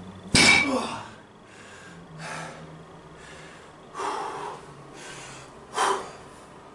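Loaded barbell set down on the floor with a loud knock just after the start, with a hard exhale, followed by heavy breathing in three loud gasps as the lifter recovers from a set of bent-over rows.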